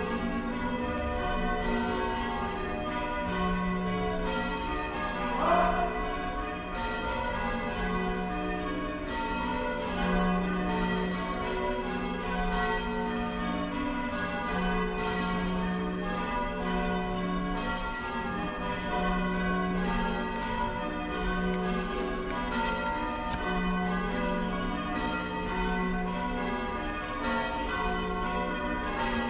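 Church bells being rung in changes by a band of ringers: a continuous run of overlapping bell strokes. A brief rising sound cuts across them about five seconds in.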